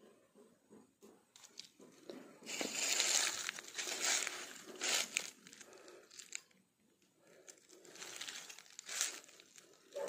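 Footsteps crunching and rustling through dry leaf litter and undergrowth, in two irregular bouts with a quieter pause between.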